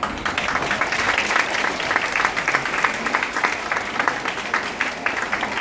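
A school-assembly audience of children applauding: dense clapping that starts suddenly and thins out near the end.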